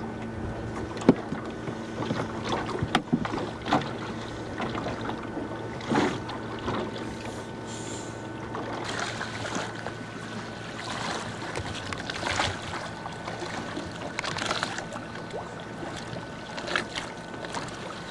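Small sailboat under way: water splashing and lapping against the hull, with several sharp knocks from gear aboard over a steady low hum. The loudest knock comes about a second in.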